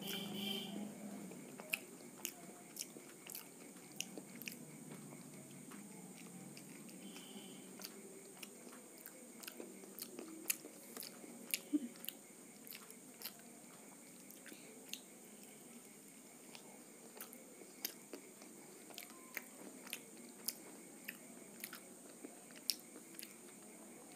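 Close-miked chewing and biting of panipuri (fuchka), with many small, irregular crunching clicks as the puri shells are eaten.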